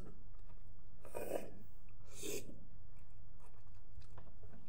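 Two short breathy sounds, about a second apart, from a person eating noodles close to the phone, over a low steady hum.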